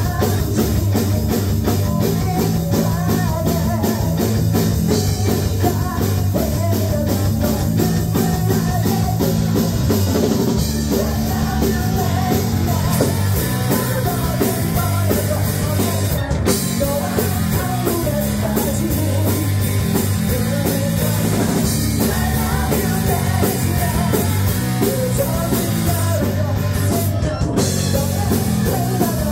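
A rock band playing live: a singer singing into a microphone over a drum kit and amplified band. The music is loud and continuous.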